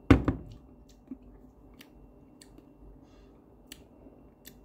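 Mouth sounds of tasting a stout after a sip: a loud, sharp double smack of the lips at the start, then a few faint lip clicks while the taste is savoured. A short soft thud about a second in fits the glass being set down on the counter.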